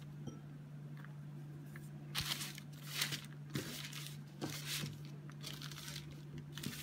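Hands pressing and pushing soft, floured dough on a lined baking tray, giving a series of short rustles and crinkles from the dough against the tray's liner, over a steady low hum.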